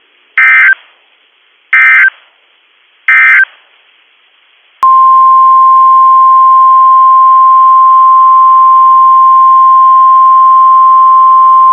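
Emergency Alert System SAME data signal: three short bursts of screechy digital tones, about a second and a half apart. A couple of seconds later a long, loud, steady single-pitched alert tone starts: the NOAA Weather Radio 1050 Hz warning tone.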